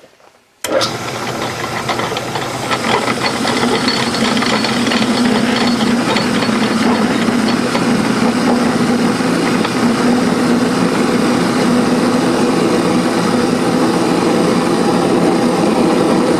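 Metal lathe running with a cutting tool feeding into the spinning metal workpiece: a steady machine hum with continuous cutting noise. It comes in about half a second in.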